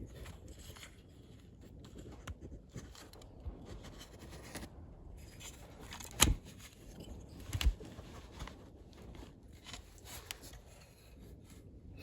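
Clutch self-adjuster ratchet parts and spring handled by hand: light scraping and rustling, with two sharp clicks about six and seven and a half seconds in.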